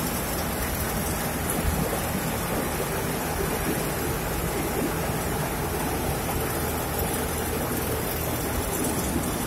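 Flour-mill machinery running: electric motors and belt-driven machines, the bran cutter among them, making a steady, even mechanical noise that holds at one level throughout.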